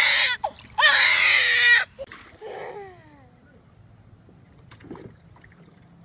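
Baby crying in protest at being lowered into a paddling pool: two loud wavering wails in the first two seconds, then a shorter whimper falling in pitch.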